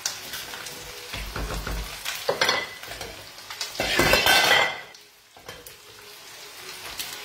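Octopus and artichokes sizzling as they fry in a wok, stirred with a wooden spoon, with a few clicks from the pan and a louder burst of sizzling about four seconds in.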